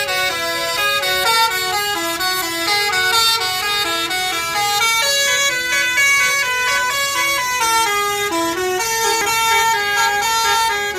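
Bus's telolet 'basuri' musical horn playing a melody: a continuous run of loud horn notes stepping up and down in pitch every fraction of a second.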